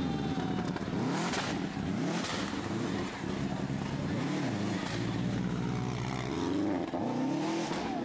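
Subaru Impreza rally car engine revving hard, its pitch rising and falling repeatedly through gear changes and throttle lifts as it drives the stage, with a couple of sharp cracks early on.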